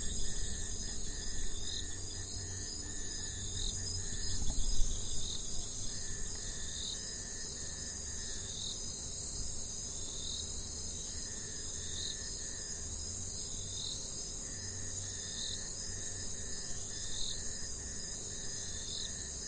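Tropical rainforest insect chorus: a dense, steady high-pitched buzz of crickets and other insects. Over it, short calls repeat about once a second and a lower trill switches on and off every couple of seconds. About four and a half seconds in there is a brief low rumble, the loudest moment.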